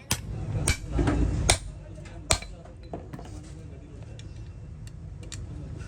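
Metal tools and parts clinking and knocking against each other: several sharp, separate strikes, two of them louder, about a second and a half and two seconds in.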